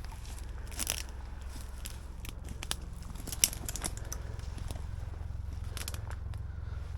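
Crunching and crackling of dry leaves and twigs underfoot as people move through woodland undergrowth, with a few sharp twig snaps, the loudest about three and a half seconds in. A low steady drone runs underneath.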